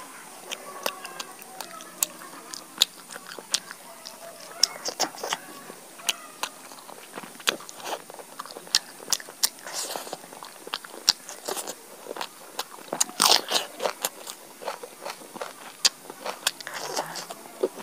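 Close-miked chewing of roasted chicken: many sharp wet mouth smacks and clicks with crunching, busiest about two-thirds of the way through, as the meat is also pulled apart by hand.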